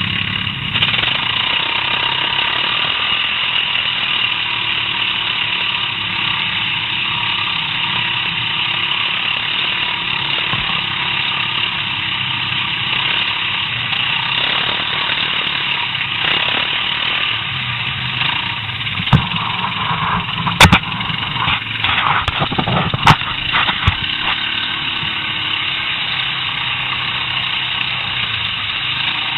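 Quad bike (ATV) engine running steadily, heard from on board the machine. About two-thirds of the way through there is a cluster of sharp knocks and clatters.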